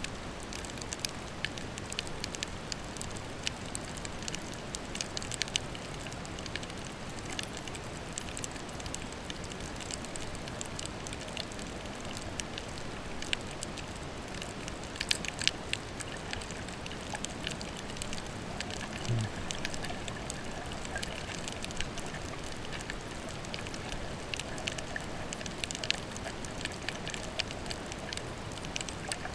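Underwater ambience over a coral reef: a steady hiss with scattered, irregular sharp clicks and crackles.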